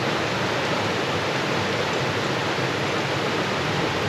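Steady rush of running stream water, an even noise that holds level without surges.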